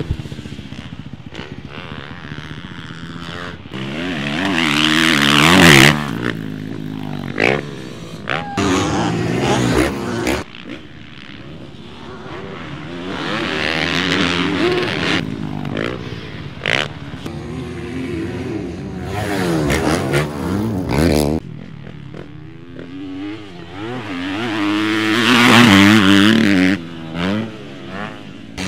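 Motocross dirt bike engines revving hard and backing off as the bikes ride the track. Several passes, the pitch climbing and dropping with each burst of throttle, loudest about five seconds in and again near the end.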